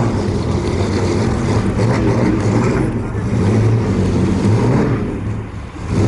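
A car engine running steadily nearby, its low tone holding even, with the level dipping briefly near the end.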